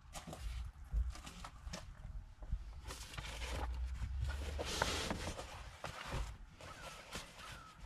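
Covercraft Carhartt fabric seat cover rustling and sliding as it is pulled down over a truck seat. The rustling is loudest in a stretch in the middle, with scattered knocks and taps from handling the seat and cover, over a low rumble.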